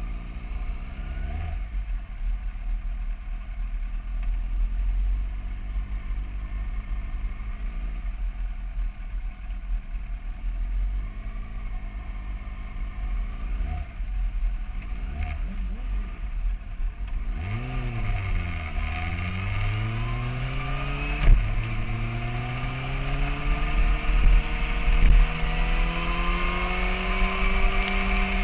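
Sportbike engine running at low revs while rolling slowly, then accelerating hard from about two-thirds in. The engine note rises, drops once at a gear change and climbs again, with wind rush over the microphone growing as speed builds.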